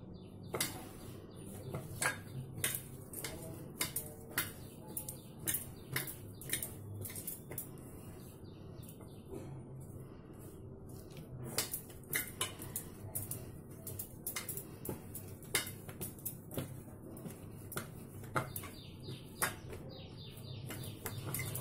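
Irregular clinks and knocks of a stainless-steel bowl as bread dough is kneaded in it by hand, over a low steady hum.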